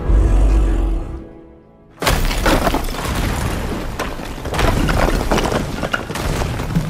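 A deep boom that dies away almost to quiet, then about two seconds in a sudden loud crash of stone breaking open, with crumbling and falling rubble going on after it, under a film music score.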